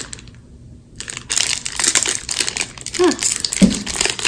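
A plastic snack wrapper crinkling and crackling as it is handled and opened. It starts about a second in after a brief quiet.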